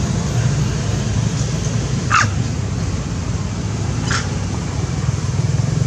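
Two short animal calls about two seconds apart, over a steady low hum.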